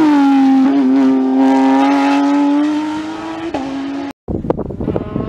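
Rally car's engine passing close at high revs. Its pitch drops as it goes by, then holds steady as it pulls away and fades. About four seconds in, the sound cuts out briefly and gives way to a noisy, rustling background.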